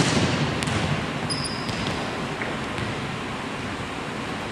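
Volleyball spike in a gymnasium: the sharp slap of the hand on the ball at the very start echoes around the hall, then the ball strikes the hardwood floor about half a second in, followed by a few fainter bounces and a brief squeak.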